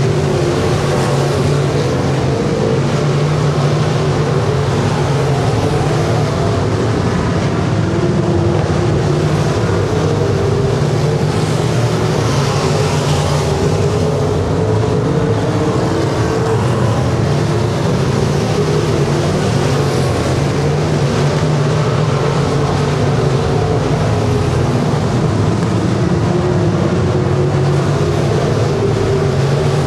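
A pack of super stock dirt-track race cars running the feature at racing speed, their engines making a loud, unbroken drone, with a brighter swell about twelve seconds in as cars pass closer.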